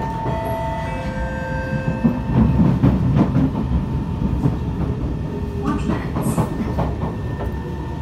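Kawasaki C151 MRT train running at speed, heard from inside the car: a steady low rumble of wheels on rail, with a steady whine in the first two seconds that then fades. About six seconds in comes a short run of sharp clicks and knocks from the wheels.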